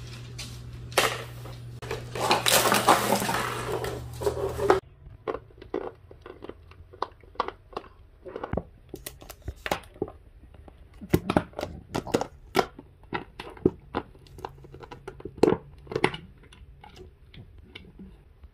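An empty plastic water bottle being crushed and chewed by an English bulldog. For the first five seconds there is loud, dense crinkling and crackling of the plastic over a steady low hum. Then come scattered sharp crunches and clicks as the dog bites the bottle and its cap.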